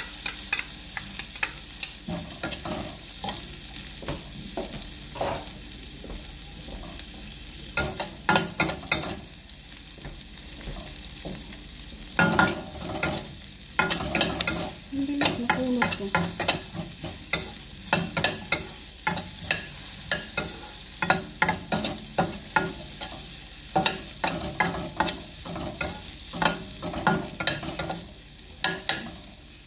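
Sliced onions and garlic sizzling in olive oil in a stainless steel wok, stirred with a metal spoon that scrapes and clinks against the pan again and again.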